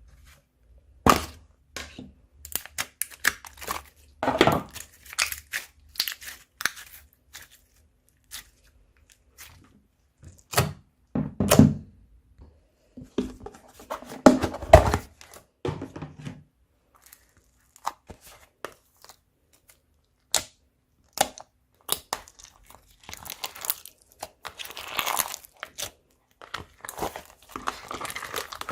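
Hands kneading slime mixed with crunchy foam: irregular crackling and crunching pops with occasional louder squishes, thickening into denser crackling near the end.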